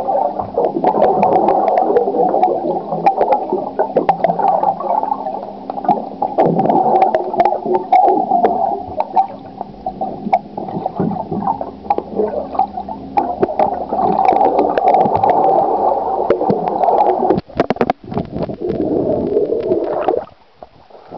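Muffled underwater pool noise picked up by a submerged waterproof compact camera: a steady gurgling wash with many small clicks and pops from a swimmer moving the water and bubbles. The sound drops away suddenly near the end as the camera is lifted out of the water.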